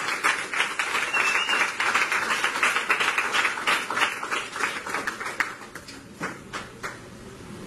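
A roomful of people clapping and applauding, dense at first, then thinning to a few scattered claps and dying away in the last couple of seconds.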